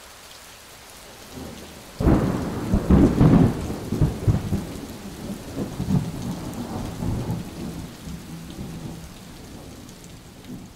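Steady rain falling, with a clap of thunder about two seconds in that rumbles in rolling peaks and then slowly dies away.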